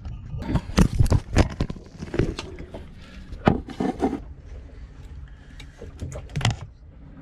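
Irregular clicks, knocks and scrapes of hands working solar-panel mounting hardware as parts are screwed in place, over a steady low rumble.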